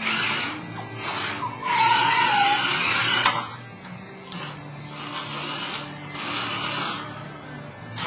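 Toy remote-control car's small electric motor whirring in short runs, starting and stopping four or five times.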